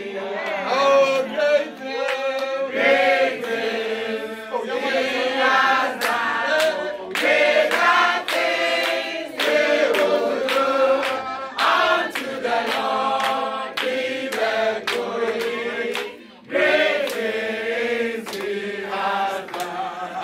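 A group of men and women singing a song together in chorus, with one brief pause near the end.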